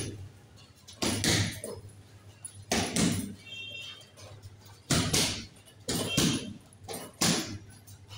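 Punches landing on a hanging heavy punching bag: about six sharp thuds, singly or in quick pairs, every second or two. A steady low hum runs underneath.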